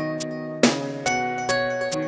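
Instrumental song intro with no singing: a steady run of plucked-string notes, a little over two a second, each struck sharply and ringing as it fades.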